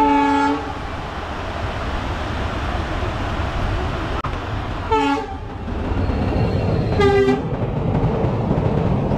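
Indian Railways express train passing in rain, its locomotive horn giving three short blasts, about a second in (right at the start), then about five seconds and seven seconds in, over the steady rumble of the coaches rolling on the track.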